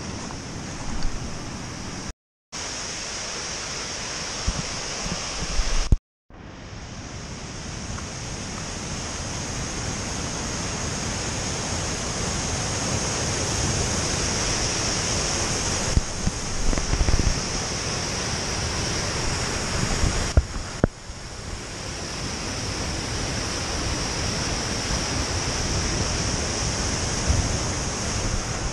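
Steady rushing of a mountain waterfall and white-water stream close by, mixed with wind on the microphone. It cuts out briefly about two and six seconds in, then grows louder over the next several seconds and holds steady.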